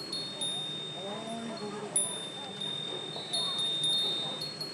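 Wind chimes ringing: clear high tones struck again and again, each ringing on for a moment, with faint voices of passers-by beneath.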